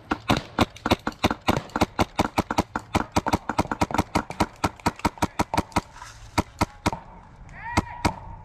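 A rapid, even run of sharp clicks, about five or six a second, that stops about seven seconds in, with a few more near the end.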